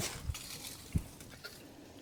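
Faint clicks and scrapes of fence wire being wrapped and twisted by hand, with a dull bump about a second in.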